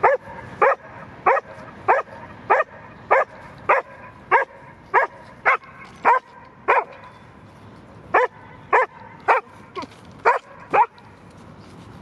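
A dog barking at a squirrel up a tree, excited and insistent: a steady run of short barks, about one every half second, with a brief pause about seven seconds in before the barking resumes.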